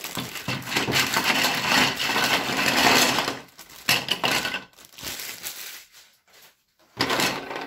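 White plastic GraviTrax curved tiles tipped out of a plastic bag onto a table, a dense rattling clatter mixed with bag crinkling for about three and a half seconds, then a few separate clacks as the tiles are pushed about.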